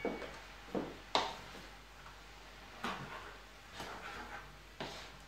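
Wooden spatula scraping and knocking against a wok as cooked rice is stirred in, about six short irregular strokes.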